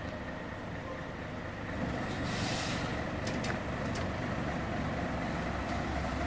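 Scania N113CRB bus's 11-litre six-cylinder diesel engine running at idle, getting louder about two seconds in. A short hiss of released air comes just after, followed by a few sharp clicks.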